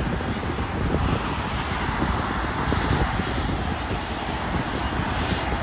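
Steady rushing noise of a jet airliner's engines, with wind rumbling on the microphone.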